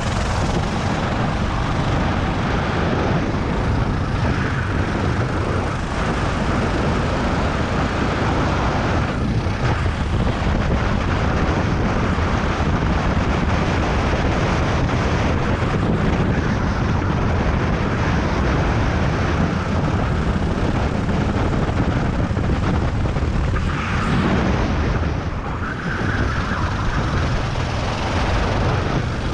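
Racing kart engine running hard under the driver, heard onboard over the steady rush of the kart at speed. Its sound drops briefly near the end as the kart slows into a corner, then picks up again.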